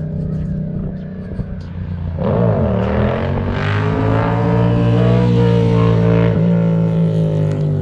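Motorcycle engine running low and steady, then revving hard about two seconds in, its pitch dipping and climbing before it holds at high revs as the bike accelerates past on a wheelie run.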